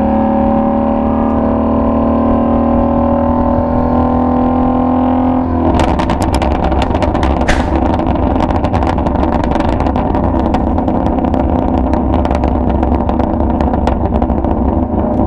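Ford Shelby GT350's V8 engine and exhaust: a steady drone for the first five seconds or so. From about six seconds in it changes to a dense, rough sound packed with rapid exhaust pops and crackles.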